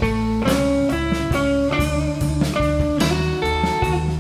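Live blues band playing instrumentally: an electric guitar through a Divided By 13 RPB 19/37 amp plays single-note lead lines over bass, drums and keyboard, with no singing.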